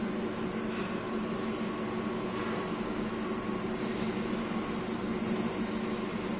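Steady hum of a CNC lathe running, with several steady low tones, while no cut is being made.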